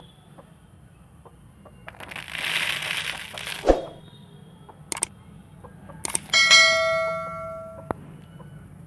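A bright metallic ding that rings out with many overtones for about a second and a half and is cut off abruptly. It comes after a short hissing rustle that ends in a sharp knock, and a few light clicks.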